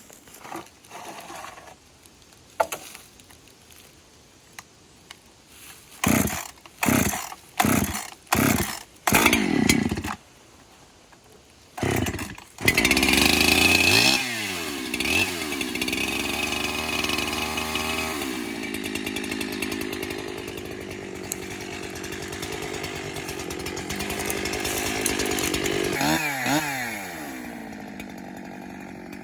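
Chainsaw being pull-started: several short firing bursts, then it catches about twelve seconds in and runs. The revs rise and fall a few times, then drop back to a quieter idle near the end.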